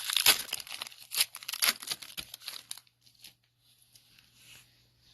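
Wrapper of a Score football card pack being torn open and crinkled: a dense crackle of tearing and crumpling plastic for about three seconds, then a faint rustle as the cards are handled.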